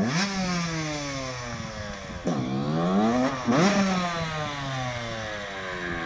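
1996 KTM 125 SX two-stroke single-cylinder dirt bike engine being ridden, revved up sharply about three times with the pitch falling away slowly after each burst as the throttle is rolled off.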